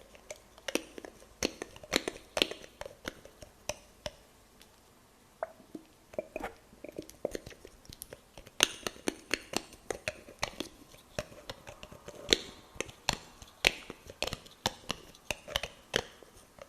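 Fingernails tapping lightly as an ASMR trigger: a run of crisp, irregular clicks, several a second, with a short lull about five seconds in and denser tapping in the second half.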